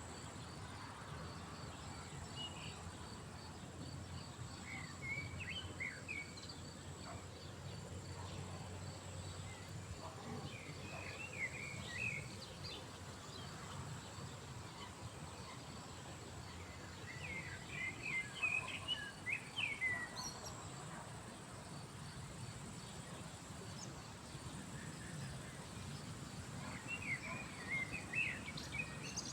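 Small songbird twittering in short bursts of quick chirps every several seconds, the longest burst near the middle, over a steady outdoor background hiss with a faint high, regular ticking.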